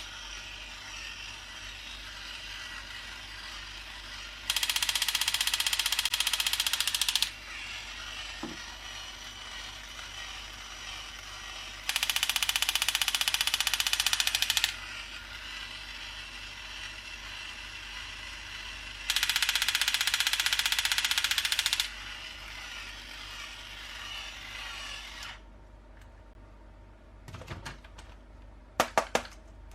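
A small battery-powered toy's motor and plastic gears whirring steadily. Three louder grinding bursts of about three seconds each come at regular intervals, as the toy runs through its moves. Near the end the whir stops and a few sharp plastic clicks follow.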